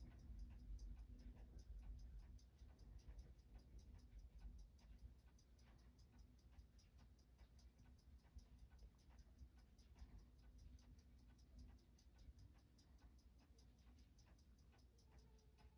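Seiko 6139 automatic chronograph movement ticking steadily, picked up by a timegrapher's microphone: faint, rapid, evenly spaced beats as the freshly serviced watch runs in.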